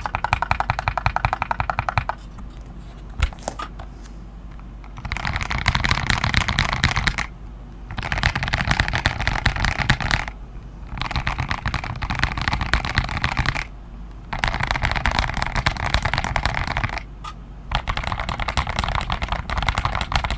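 Fast typing on an NK87 Entry Edition mechanical keyboard, with its keys clacking in rapid runs of two to three seconds broken by short pauses.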